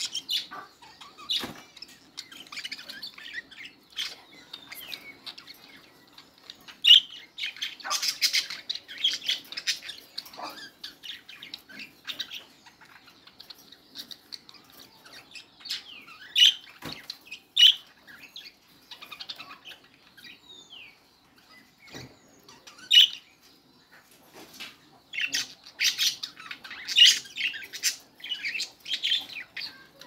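Budgerigars chirping and warbling in a busy chatter of short calls, loudest about 8 seconds in and again near the end, with a few sharp clicks in between.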